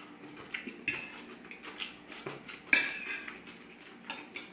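Metal fork clinking and scraping against a dinner plate while picking up rice and chicken: scattered light clinks, the loudest a little past halfway with a brief ring.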